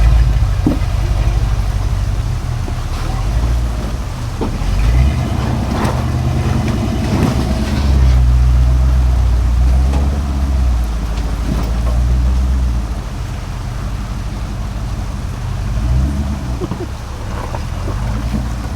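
Off-road vehicle engine rumbling at low speed under load while rock crawling, swelling and easing off, with a few short knocks.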